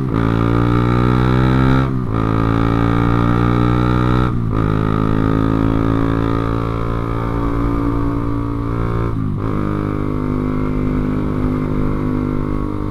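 Honda CB150R's single-cylinder engine accelerating through the gears under way. It shifts up right at the start, then about two, four and nine seconds in; at each shift the sound drops briefly, then the revs climb again.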